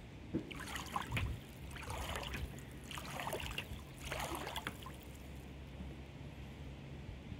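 Kayak paddle strokes in river water: four splashing, dripping strokes about a second apart, then they stop.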